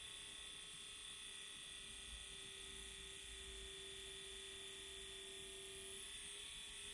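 Small electric whisk running steadily, a constant motor buzz as it whips cream.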